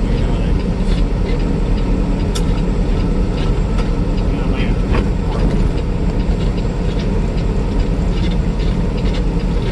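Semi truck's diesel engine and road noise inside the cab while driving, a steady low rumble, with light rattles and a sharp click about two seconds in.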